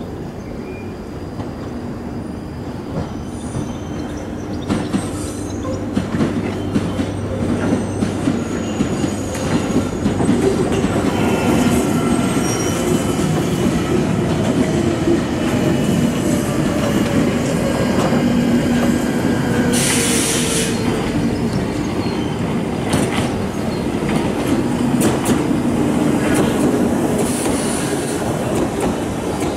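London Underground 1995 Stock Northern line train approaching and running into the platform, growing louder. Its wheels click sharply over the points and rail joints, and a motor whine falls slowly in pitch as the train slows.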